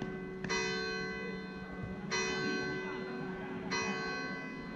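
Church bell tolling slowly: three strokes about a second and a half apart, each ringing on and fading before the next.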